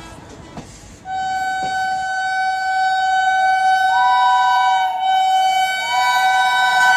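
Train horn: after a quiet first second, one long steady blast, with a second, higher note joining twice partway through.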